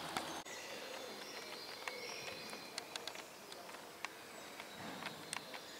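Birds singing outdoors, short high whistled notes, with a few sharp clicks scattered through.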